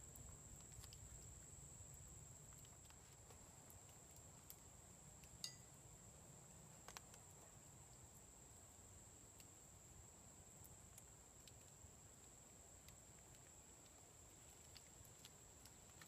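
Near silence in the woods: a faint, steady, high-pitched insect drone, with a few faint clicks.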